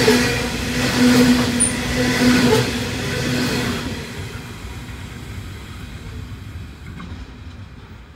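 The last coal hopper wagons of a freight train rolling past. The wheels clatter over the rails about once a second over a steady hum and ringing tone. About four seconds in the tail of the train passes and the sound fades away.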